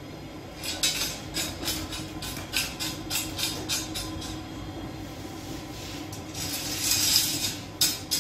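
Long metal oven rods and peel clattering and scraping on the floor of a Sangak bread oven, which is a bed of hot pebbles. A run of quick clicks and scrapes, a longer scrape about seven seconds in, then more clicks near the end, over a steady low hum.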